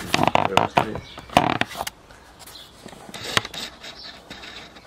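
Clicks, knocks and light scraping from things being handled close to the microphone, with a few sharp knocks in the first two seconds and one more about three and a half seconds in.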